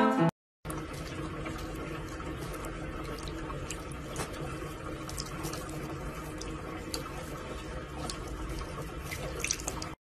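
Water from a bathroom tap running steadily into a sink while a cat drinks from the stream, with scattered small clicks.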